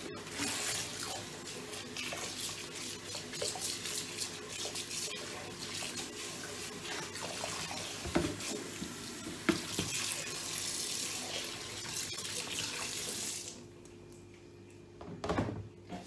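Kitchen mixer tap running into a sink, with water splashing on dishes and a plastic washing-up bowl, and a couple of clunks about halfway through. The tap shuts off about 13.5 seconds in, and a brief knock follows near the end.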